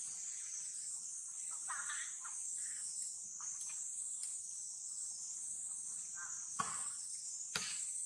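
Steady high-pitched insect chorus, with a few faint short calls and two sharp clicks near the end.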